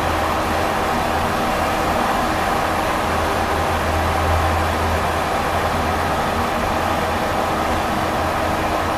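Steady engine and tyre noise heard from inside a moving vehicle's cabin while it drives through a road tunnel: a low, even hum under a constant rushing noise.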